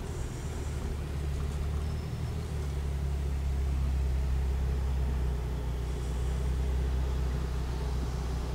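Infiniti G35's 3.5-litre V6 and road noise heard from inside the cabin while driving, a steady low drone that deepens about two and a half seconds in.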